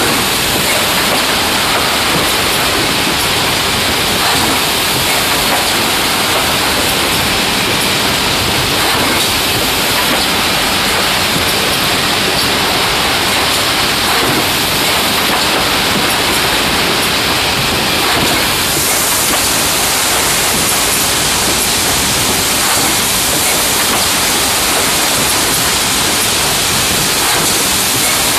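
Wrap-around case packer and its can conveyor running: a steady loud rushing machine noise with faint clatter. The hiss brightens about two-thirds of the way in.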